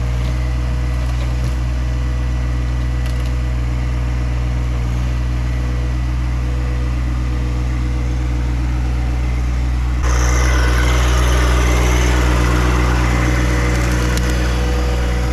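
John Deere 1025R sub-compact tractor's three-cylinder diesel engine running steadily. About ten seconds in it gets louder, with a rush of added noise.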